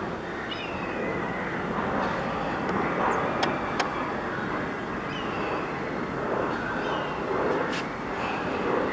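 Jet engines of a Boeing 737-900 (CFM56-7B turbofans) passing low overhead on landing approach: a steady rush of jet noise that swells and eases slightly.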